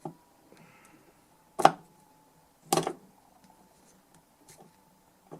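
Small handling noises of hand tools and parts on a repair bench: a light knock, then two sharp clicks about a second apart, over a faint steady high tone.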